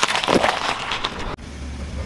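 A car tyre crushing a bell pepper on asphalt: a quick run of wet crunches and cracks. It cuts off suddenly about two-thirds of the way through, and a low steady rumble follows.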